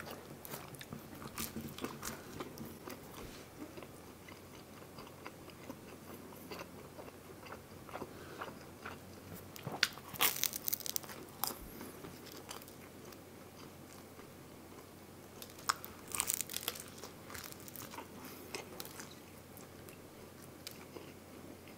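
Close-miked eating of a crisp pizza slice: quiet chewing throughout, with two louder crunchy bites into the crust, about ten seconds in and again about six seconds later.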